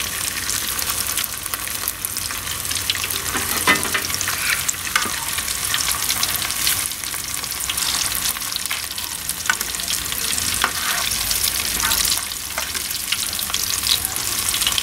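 Crumbed calamari rings and fish fillets frying in hot shallow oil in a pan, sizzling steadily with small crackles, while a wire mesh skimmer stirs and turns them.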